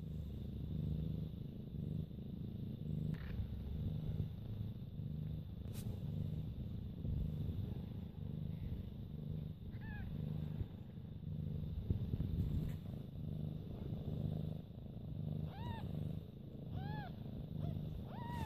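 Persian mother cat purring steadily in slow, even pulses while nursing her newborn kittens. A kitten gives a short, high mew about ten seconds in, and three more come near the end.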